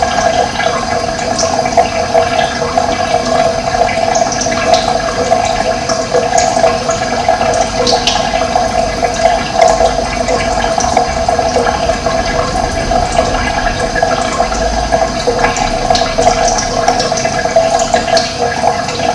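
Running water with a steady rush, with short, scattered bird chirps high above it.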